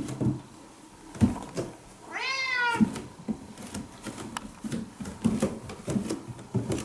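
A domestic cat gives one meow about two seconds in, rising then falling in pitch and lasting under a second, amid a series of soft low thumps.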